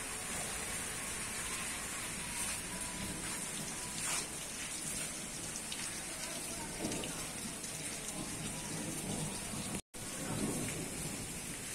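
Steady rain falling as an even hiss, cutting out for an instant near the end.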